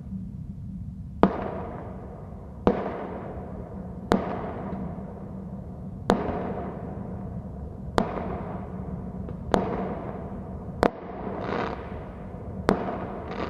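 Fireworks going off: eight sharp bangs spaced about one and a half to two seconds apart, each trailing off in a long echoing rumble. A brief hiss sits between two of the bangs near the end, over a steady low background noise.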